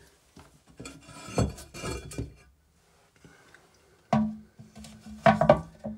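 Ceramic lid of a Roca toilet cistern being lifted off and handled, clinking and knocking against the porcelain in two bursts, one about a second in and another from about four seconds in.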